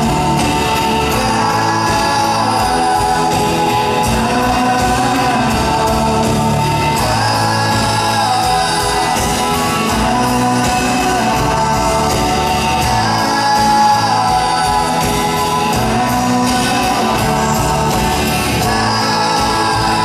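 Live rock band with a male lead vocal over acoustic and electric guitars, bass and drums, recorded from the audience in a concert hall.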